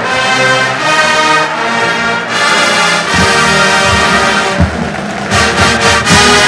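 Marching band playing: brass holding sustained chords, with drum strikes coming in about three seconds in and repeating through the rest.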